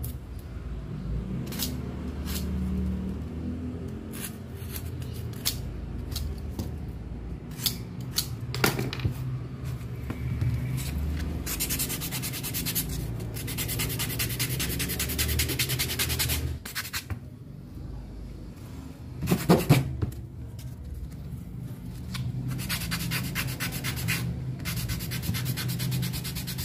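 Handwork sounds from building a small model plane: rubbing and scraping with scattered sharp clicks, and twice a stretch of rapid, even ticking lasting a few seconds.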